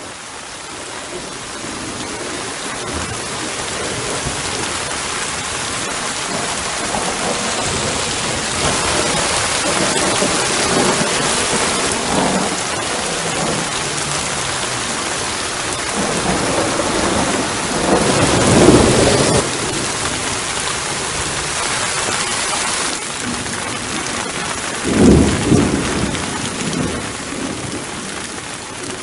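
Steady rain falling throughout, fading in at the start, with thunder rumbling. Two louder rolls of thunder come about two-thirds of the way in and near the end.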